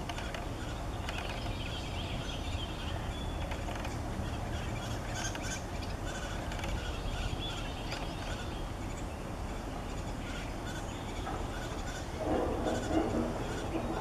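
Brown thrasher fledglings begging with repeated short, scratchy calls while being fed, over a steady low background rumble. A louder, lower-pitched burst comes near the end.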